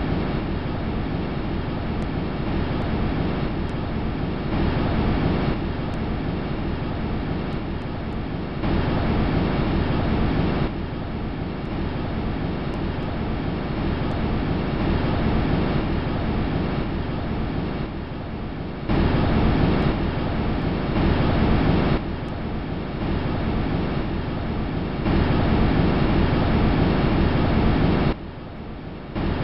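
Audio from the Huygens probe's descent through Titan's atmosphere: a steady rushing, rumbling noise like wind buffeting the capsule, getting louder and softer in sudden steps every few seconds.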